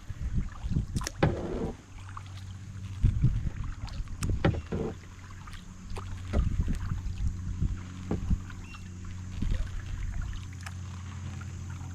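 Kayak paddling: irregular splashes and knocks of the paddle strokes in the water, over a steady low hum.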